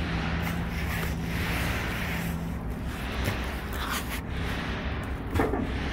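Rubber tires rubbing and swishing as they are handled and stacked into racks, a soft swish every second or two over a steady low hum, with a short squeak near the end.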